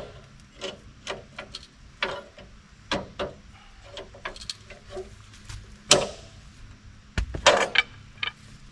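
Irregular knocks, clicks and rubbing of metal against wood as a log is clamped and set against the stops on a portable sawmill. A sharp knock comes about six seconds in, and a quick cluster of knocks about a second later.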